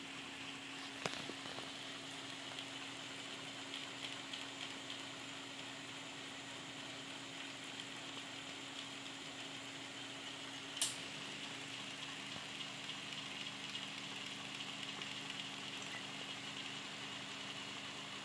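Continuous inkjet printer prototype running: a steady pump hum over a hiss. A sharp click comes about eleven seconds in, after which a second, lower hum joins.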